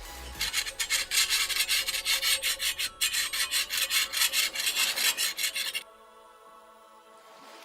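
A hand tool rasping on wood in quick, even strokes for about five seconds, then stopping abruptly.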